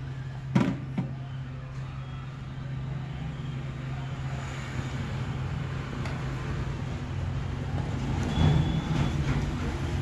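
Steady low hum with background noise like distant traffic, with a sharp knock about half a second in and a few small handling knocks near the end.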